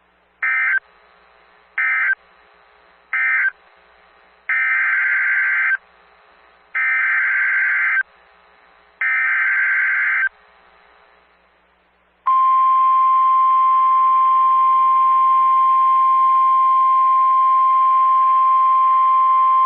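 Emergency Alert System SAME data bursts from NOAA Weather Radio. First come three short warbling bursts of digital data tones, the end-of-message code. Then come three longer bursts, the header for the next alert. About twelve seconds in, a steady 1050 Hz Weather Radio warning alarm tone starts and holds.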